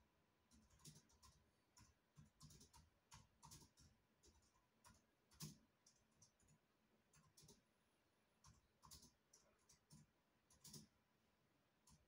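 Near silence broken by faint, irregular clicks, two or three a second.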